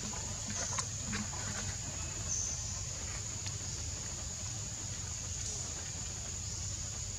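Outdoor background sound: a steady high-pitched drone over a low rumble, with a few faint clicks about a second in.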